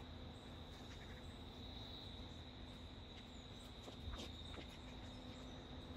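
Faint steady insect trill, like crickets, over quiet outdoor background noise, with a few faint clicks.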